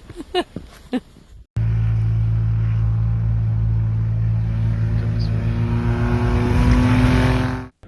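A motor vehicle engine running hard and steady, its pitch creeping up slightly toward the end, with a rushing noise over it. It begins abruptly about a second and a half in and cuts off just before the end.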